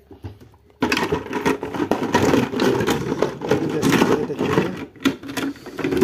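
Plastic coffee-machine spare parts clattering and rattling against each other and a clear plastic jar as a hand rummages through them, starting about a second in with a dense run of quick knocks and a short lull near the end.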